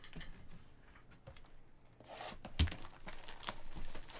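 Plastic shrink wrap crinkling and tearing as a sealed box of baseball cards is handled. A sharp click comes about two and a half seconds in.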